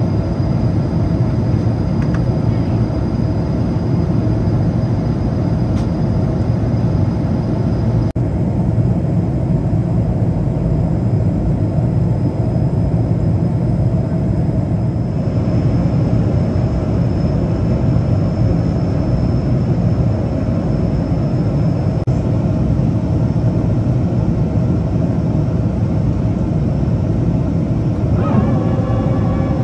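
Steady low rumble of a Boeing 777's engines and rushing air heard inside the passenger cabin, with a faint high whine above it.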